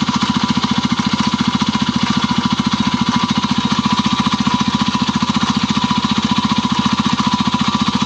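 Stels Kapitan snowmobile's four-stroke engine running with a steady, fast, even beat. There is some scraping but no anvil-like knock, which the owner takes to mean the RVS engine treatment has quieted the knock.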